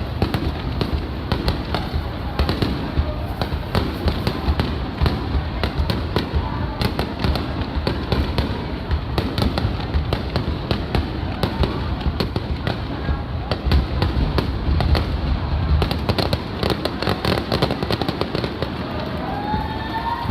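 Aerial fireworks bursting in rapid succession: a dense, continuous crackle of sharp reports over deep low booms.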